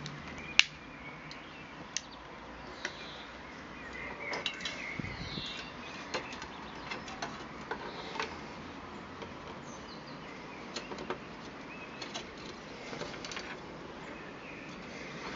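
Brass windscreen and chained key of an Optimus Svea 123 stove being handled and fitted: scattered metal clicks and taps, the sharpest about half a second in. Birds chirp in the background.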